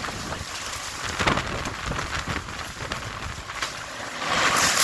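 Strong gale-force wind blowing in gusts and buffeting the microphone, with a short loud gust about a second in and another swelling near the end.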